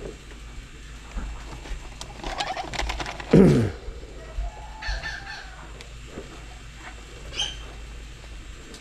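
Chickens clucking and calling, with a run of quick wing flaps. About a third of the way in comes a loud, short sound that slides down in pitch, followed by two brief higher calls.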